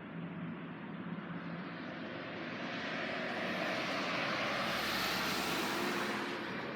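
A passing vehicle: a steady rushing noise swells to a peak about five seconds in, then fades.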